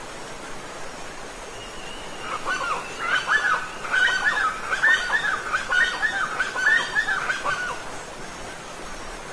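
Steady rush of falling water from a waterfall, with a bird calling in a fast run of repeated, chattering notes that starts about two seconds in and stops about five seconds later.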